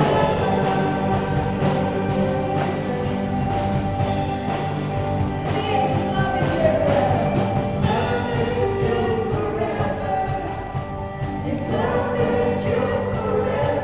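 Live worship band playing an upbeat song, with several singers singing together over a steady beat from drums, guitar and keyboard.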